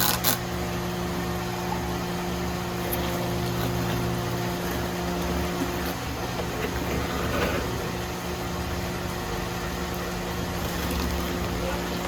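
A steady low mechanical hum with a few fixed tones over a low rumble, with a few sharp clicks at the very start.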